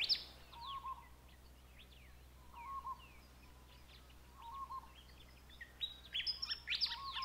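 Wild birds calling faintly in dry open bushland: scattered quick chirps and short high sweeping notes, with a short lower note repeated about every two seconds.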